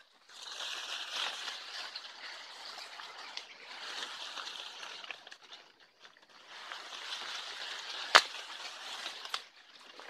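Bamboo leaves and thin stems rustling and scraping as they are pushed aside by hand, with a single sharp click about eight seconds in.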